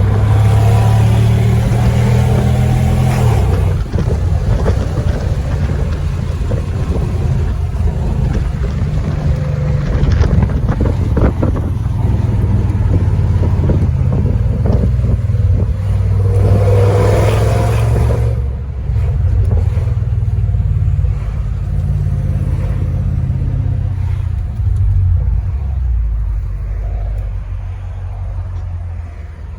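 Mercedes CL63 AMG's 6.2-litre M156 V8 engine running under way, heard from inside the cabin. It surges louder twice, in the first few seconds and again around sixteen seconds in, with steadier running between and easing off near the end.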